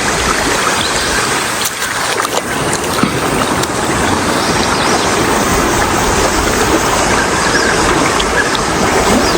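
Loud, steady rush of fast-flowing river floodwater, a continuous roar of noise with no pitch.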